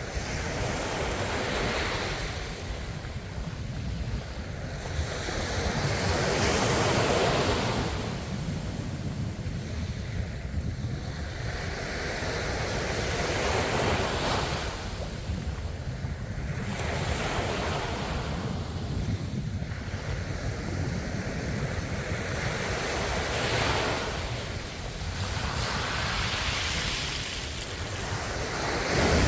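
Ocean waves breaking and washing on a shore, a steady rush that swells and falls back every few seconds.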